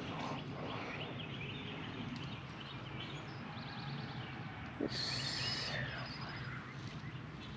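Outdoor ambience with birds chirping over a steady low background noise. About five seconds in, a short knock is followed by a brief high buzzy hiss.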